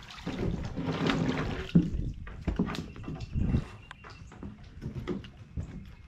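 Water lapping and sloshing in irregular splashes.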